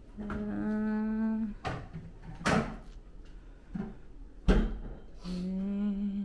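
A person humming two long, steady, low "mmm" notes, one near the start and one near the end. Between them come short breathy rustles and a bump from handling the camera.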